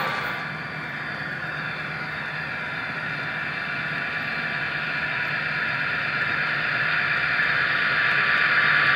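Model Amtrak F40PH diesel locomotive and its train running along the track, a steady drone that grows gradually louder as it comes toward the listener.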